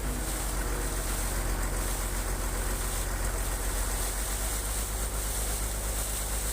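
Borewell compressor rig running steadily while washing a tube well: a constant low engine hum under an even rushing noise of the air-lift flush.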